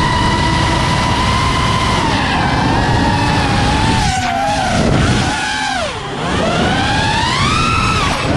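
Brushless motors of a 5-inch FPV racing quadcopter (Hypetrain 2306 2450kv) whining in flight. The pitch holds steady, then dips and climbs again in deep swoops as the throttle is cut and punched.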